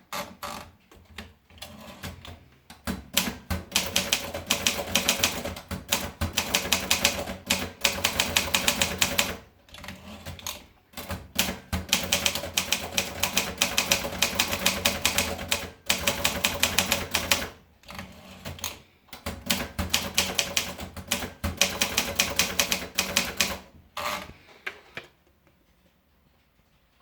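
Optima Elite typewriter being typed on: rapid runs of key strikes clacking against the platen, broken by short pauses, and stopping a couple of seconds before the end.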